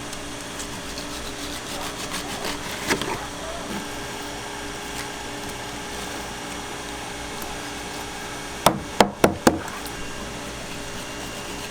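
A fish knife striking a wooden cutting board, four sharp knocks in quick succession about nine seconds in, with softer knocks about three seconds in, over a steady machine hum.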